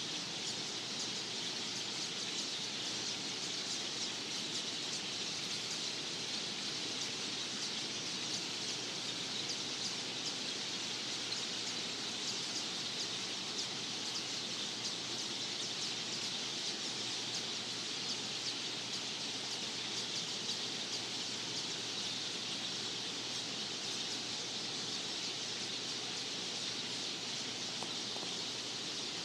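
A dense, steady chorus of many small birds chirping at once from a large flock, loud and unbroken, with no single call standing out.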